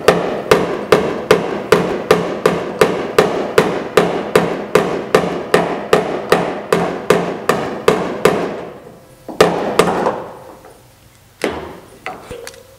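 Body hammer tapping steel sheet metal on a 1966 Ford Mustang's body line in a quick, even run of light blows, about two or three a second, each leaving a short metallic ring, then a few single taps near the end. This is knocking the high metal down beside the dent while a stud lever pulls the low spot up, to bring back a crisp body line.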